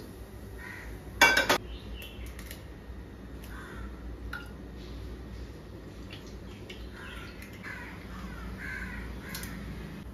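A crow cawing, loudest about a second and a half in, over soft clinks of eggs being cracked into a frying pan.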